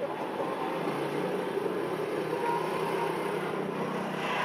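WDG-3A ALCo diesel locomotive's 16-cylinder 251 engine running as it pulls a passenger train away. It is a steady low drone that firms up about a second in.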